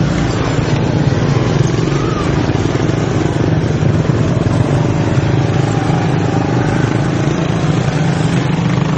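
Steady engine drone of slow-moving motor vehicles close around the microphone, a motorcycle among them, with road and wind noise over it. The engines hold an even pitch without revving.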